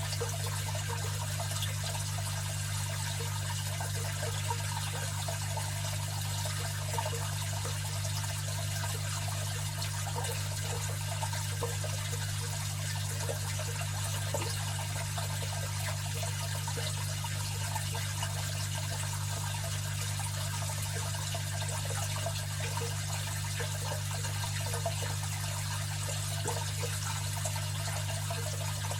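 Aquarium filter running: water trickles and splashes steadily over a constant low hum.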